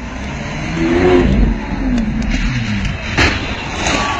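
Supercar engine revving as the car accelerates along the street, its note rising and then falling away, with one sharp crack about three seconds in.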